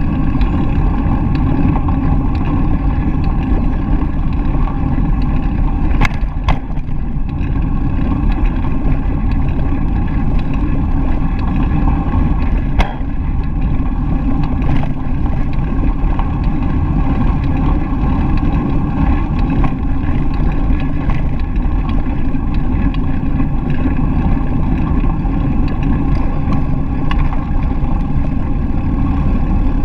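Steady rumble of wind on the microphone and bicycle tyres rolling over a gravel path, with a couple of sharp knocks about six and thirteen seconds in.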